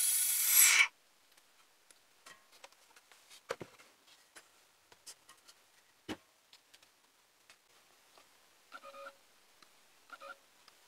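Vacuum chamber setup for degassing resin: a loud, steady hiss with a whistling tone through its hose and valve, which cuts off suddenly about a second in. Then small clicks and knocks of handling, and near the end three short rattles of coffee beans in a plastic cup.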